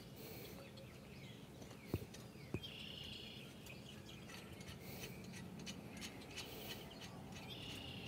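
Faint background with two small clicks about two seconds in as a jam nut is threaded by hand onto a hitch's U-bolt, and a bird chirping briefly just after them and again near the end.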